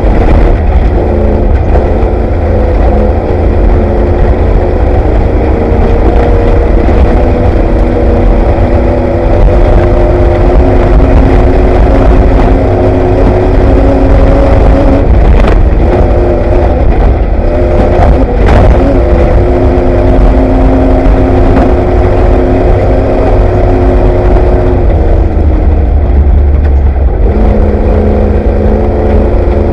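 Off-road race vehicle's engine running hard under a heavy low rumble, heard from inside the car, its pitch stepping up and down as the revs change. A couple of sharp knocks come about halfway through.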